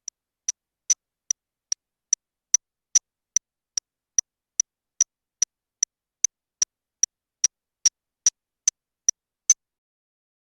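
Short, sharp, high-pitched electronic ticks repeating evenly about two and a half times a second, stopping about nine and a half seconds in.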